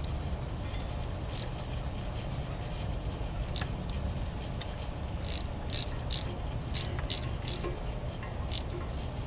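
Half-inch ratchet tightening the shear-pin bolt on a post hole digger gearbox: short, sharp clicking rattles on the back-strokes, coming at uneven intervals and more often in the second half. Under it runs a steady low rumble.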